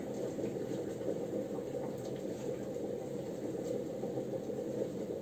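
Water at a full boil in a stainless electric kettle, with taioba stalks and leaves in it: a steady low bubbling rumble.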